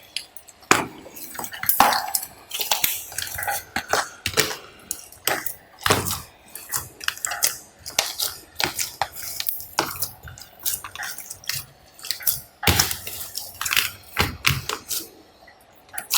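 Glossy slime being mixed and squished, making many irregular sharp clicks and pops.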